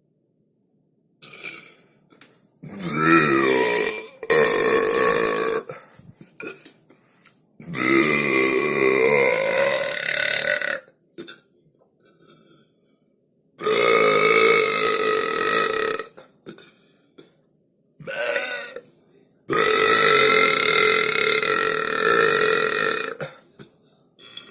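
A series of loud, long burps one after another with short pauses between, about six in all. Several are drawn out for two to three seconds.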